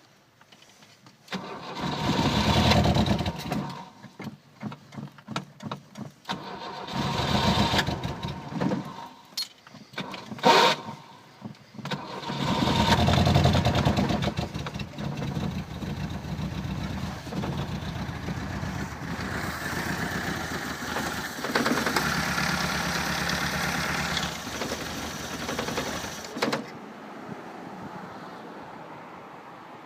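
Engine being cold-started in about −20 °C frost: it is cranked in several hard attempts before catching about twelve seconds in, runs for over ten seconds, then cuts off suddenly near the end.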